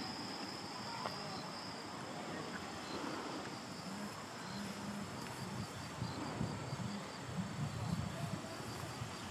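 Insects chirping: a steady high trill, joined about four seconds in by short high chirps repeating several times a second. A low, uneven rumble sits underneath in the second half.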